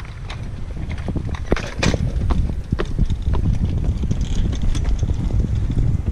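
Wind buffeting the microphone of a handheld action camera, a low rumble, with irregular footsteps and knocks as the camera is carried at a walk.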